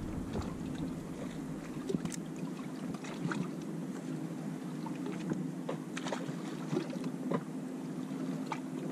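Outboard motor running steadily at low speed, a low even hum, with water slapping and splashing against the boat's hull.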